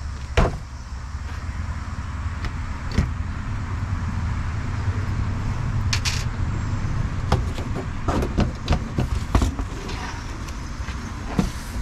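Scattered clicks and knocks of hands and tools working on RV trim and parts, over a steady low rumble and hiss.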